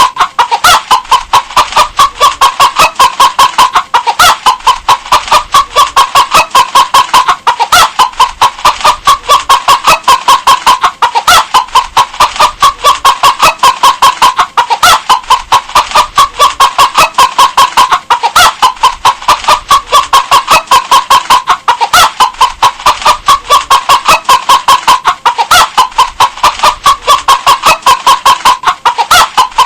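Hen clucking in a rapid, even run of short clucks, about three a second.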